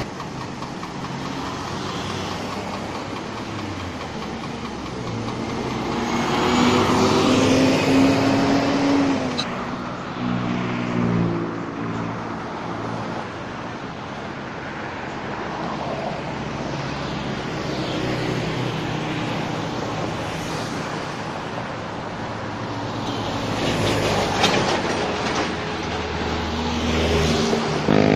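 Boom crane truck's engine running steadily, growing louder for a few seconds about a quarter of the way in and again near the end as the boom is worked.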